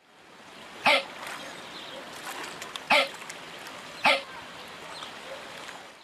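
Capybara giving three short, sharp calls, about a second, three seconds and four seconds in, with a few fainter ones between, over a steady low hiss.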